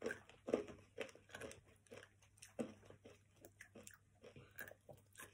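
Close crunching and chewing of a mouthful of small crunchy candies, a string of irregular crisp crunches about two a second that grow fainter toward the end.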